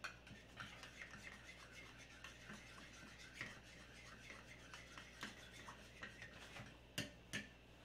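Faint scraping and light clicking of a spoon stirring sauce in a small ceramic bowl, about three ticks a second, with two sharper clicks near the end.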